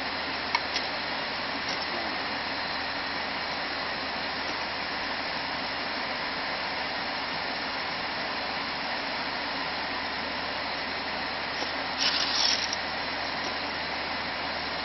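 Steady rushing noise of an airliner cabin, with a couple of light clicks as an aluminium drink can and plastic cups are handled about half a second in, and a short louder clatter of the can near the end.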